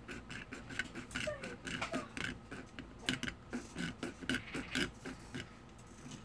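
A string of irregular light clicks and taps, like small objects being handled on a workbench, about three or four a second, dying away about five and a half seconds in.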